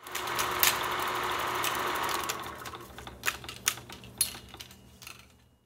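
Old-film sound effect: a sudden hiss with a mechanical clatter, like a film projector running, steady for about two seconds, then fading away through scattered pops and crackles.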